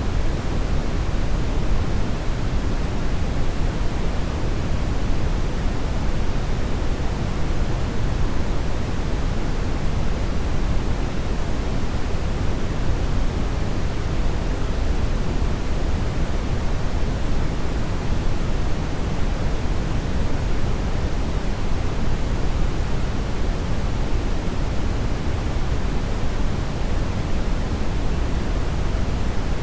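Brown noise: an even, deep rush of noise, strongest in the low end and fading toward the highs, holding steady without change.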